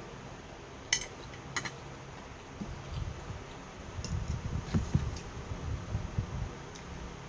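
A utensil clinks sharply against a dish twice, about half a second apart, about a second in. Then come a few seconds of low, irregular knocking and handling sounds.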